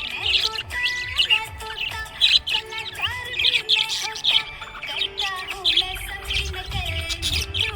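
Budgerigars chirping and warbling in a rapid, continuous stream of short high chirps, over background music.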